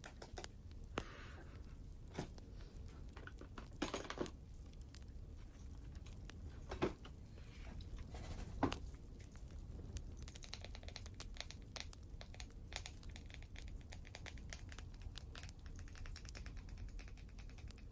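Wood fire crackling, a steady low rumble under dense fine crackles and pops, with a few louder sharp clicks and taps scattered through the first half.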